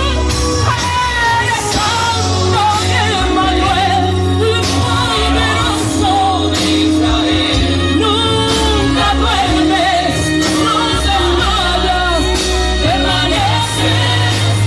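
Christian worship music with a lead voice singing over a band with steady bass, loud throughout.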